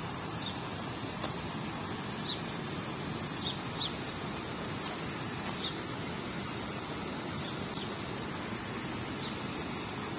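Steady rushing splash of pond aerators spraying water, with a few short, high bird chirps scattered through it.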